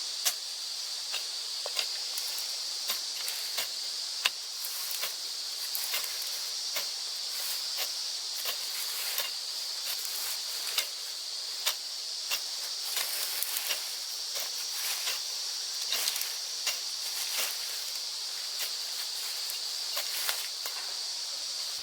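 Grass and brush being slashed and cleared by hand with knives: irregular sharp cuts and rustles, about one or two a second. Insects drone steadily underneath in a high band.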